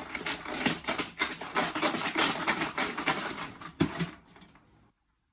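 Rapid rattling and clattering of many small draw tokens being shaken and stirred in a container to mix them before a number is drawn. It runs for about four seconds, then dies away.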